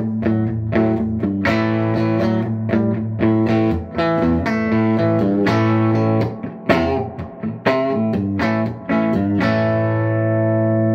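Electric guitar, a Telecaster on its bridge pickup, played through a Fender '64 Deluxe Reverb hand-wired tube amp: a run of picked chords and single notes. The last chord rings on and is cut off near the end.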